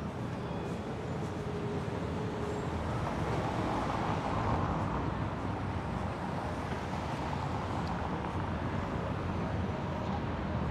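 Steady road-traffic noise of cars driving past on a city street, swelling briefly about four seconds in.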